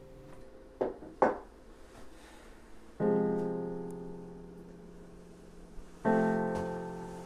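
Piano music: two chords struck about three seconds apart, each ringing out and slowly fading. Two short sharp knocks come about a second in, before the first chord.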